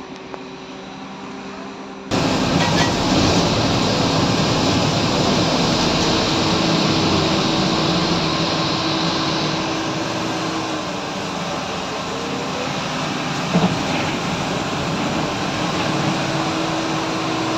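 Cabin noise of a BKM 321 trolleybus under way: a steady, dense rumble with a faint electric hum, which jumps abruptly louder about two seconds in. A single short knock comes about two-thirds of the way through.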